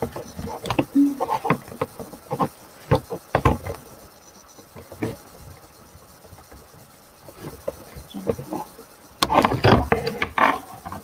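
Packaging being handled while a ceramic hair straightener is unboxed: irregular clicks and rustles of plastic and cardboard, with a denser stretch of handling near the end.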